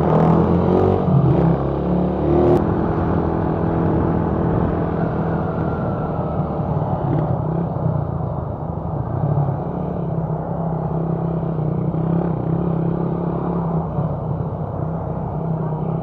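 Motorcycle engine running steadily while riding, with a low rumble of road and wind noise.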